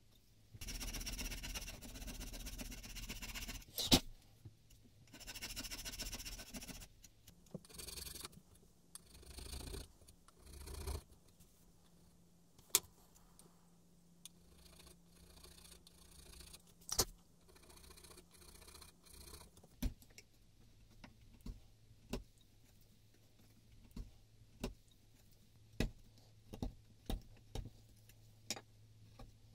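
A chisel paring boxwood inside a small plane body, in several long scraping strokes over the first ten seconds or so. Scattered sharp clicks and taps follow, over a low steady hum.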